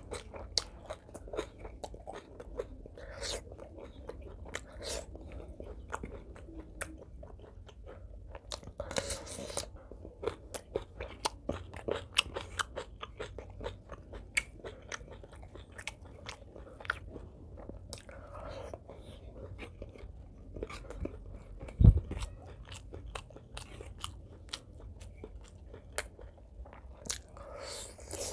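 Close-miked chewing and crunching of a crisp green vegetable stalk and of rice eaten by hand, with many small wet mouth clicks. One low thump about three-quarters of the way through.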